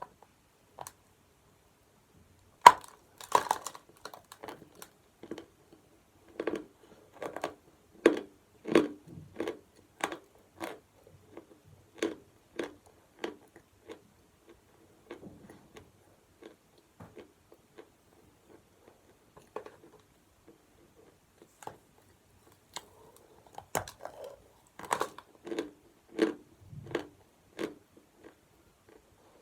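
A person biting into chalk with a sharp snap, then chewing it with crisp crunches about once or twice a second. The crunching thins out in the middle, and a new bite and run of crunches comes near the end.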